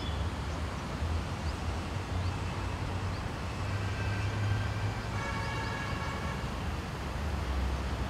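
Steady low rumble of city traffic, with a distant vehicle horn sounding as a flat, held tone for a couple of seconds around the middle. A few faint, short high chirps come early on.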